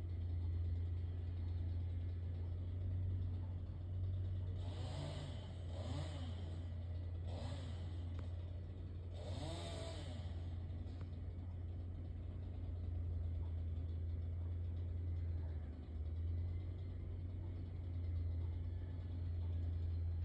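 An engine running steadily, revved up and back down three times, about four and a half, seven and nine seconds in.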